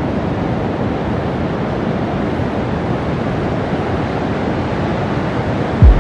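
Ocean surf breaking on a beach, a steady rushing noise mixed with wind on the microphone. Just before the end, a deep drum thump comes in as music starts.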